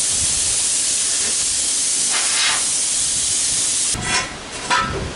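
Loud steady hiss that cuts off abruptly about four seconds in, followed by a couple of light knocks.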